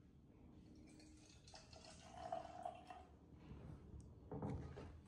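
Water poured from a thermos flask into a small baby bottle, a short trickle with a filling tone, then a knock near the end.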